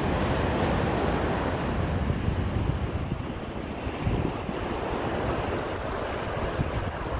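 Ocean surf washing onto a sandy beach, with wind rumbling on the microphone. The highest hiss drops away about three seconds in.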